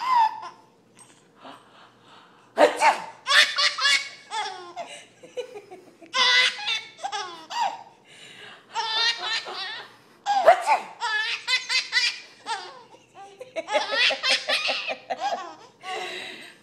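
Baby laughing: about six bouts of high-pitched belly laughs, each lasting one to two seconds, with short pauses between.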